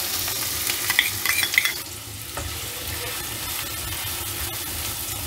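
Finely chopped onion sizzling in hot oil in a kadhai as a silicone spatula stirs it, with a few short scrapes about a second in.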